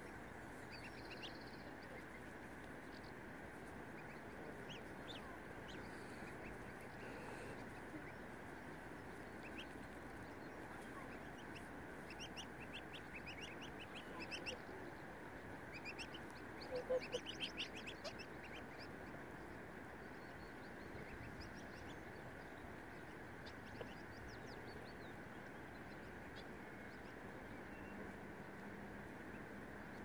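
Geese and goslings calling faintly over a steady background hiss: a run of short high peeps through the middle, thickest about halfway through, with a lower goose call among them.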